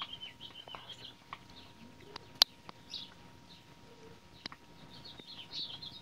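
Ladder-backed woodpecker calling: strings of short, high chirped notes that step down in pitch, near the start and again near the end. One sharp knock about two and a half seconds in is louder than the calls.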